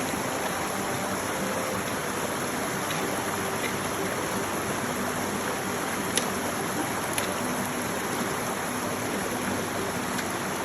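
A good-sized stream running steadily, a constant rush of water, with two faint clicks a little past the middle.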